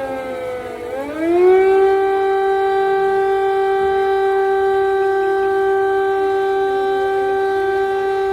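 Civil-defence air-raid siren wailing an air-raid alert: its pitch slides down, rises again about a second in, and then holds one steady tone.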